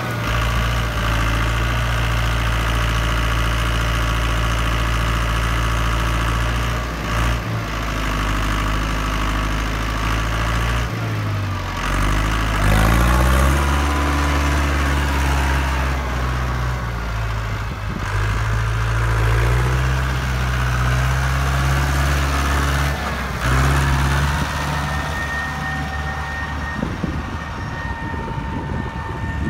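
Tractor engine running steadily; about eleven seconds in its note drops and then climbs again as the throttle changes, and it shifts once more a little later.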